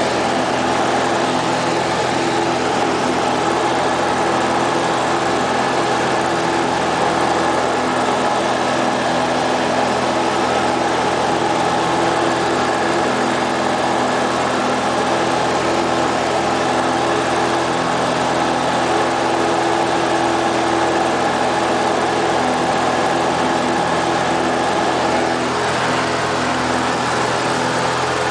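Light aircraft's piston engine and propeller running steadily in flight, heard from inside the cabin as an even hum with wind hiss.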